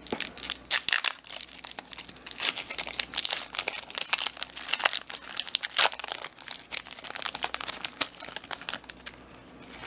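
A foil Pokémon booster pack wrapper being torn open and crinkled in the hands, a dense irregular crackle that thins out near the end.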